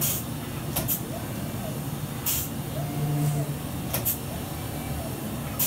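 Orion 2100 sail plotter at work drawing a pattern line on sailcloth: its motor whine glides up, holds and falls as the head moves, over a steady low hum, with four short hisses spaced a second or more apart.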